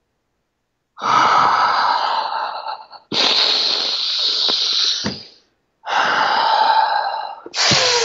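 A man taking loud, forceful breaths in and out, four long rushes of breath of about two seconds each after a second of silence. This is the deliberate breathing he does to take the shock of a cold shower.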